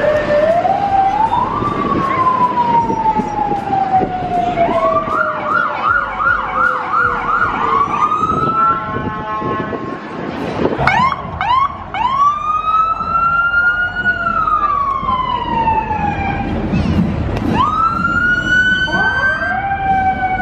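Emergency vehicle sirens from paramedic and police vehicles passing in procession. A wail climbs and then falls slowly, a fast warbling yelp comes in about five seconds in, and then several wails overlap, each rising quickly and falling slowly.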